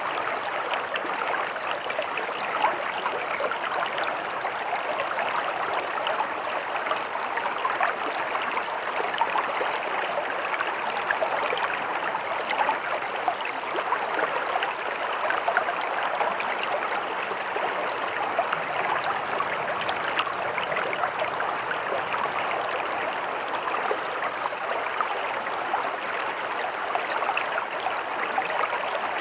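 Stream water running and splashing over rocks, a steady rushing wash with fine gurgling texture.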